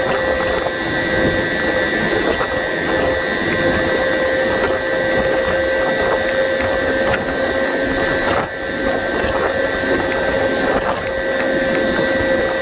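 Siemens SWT-2.3 wind turbine's nacelle machinery running at close to full power: a loud, steady drone with several high, constant whining tones over a rough rumble.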